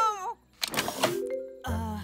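Cartoon soundtrack music. A gliding tone dies away, a short swishing effect comes about half a second in, then soft held notes, and a fuller low musical entrance near the end.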